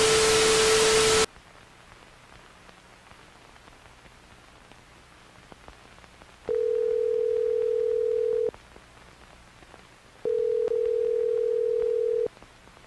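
A loud burst of static hiss that cuts off about a second in, then a telephone ringback tone: two steady rings of about two seconds each with a pause between, the sound of a call ringing before it is forwarded to voicemail.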